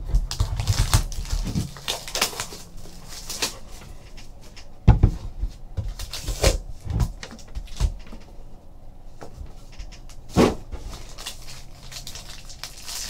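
A cardboard Panini Luxe hobby box being opened by hand and a foil-wrapped card pack pulled out and handled: scattered taps, scrapes and rustles, with two louder knocks about five seconds in and again about ten and a half seconds in.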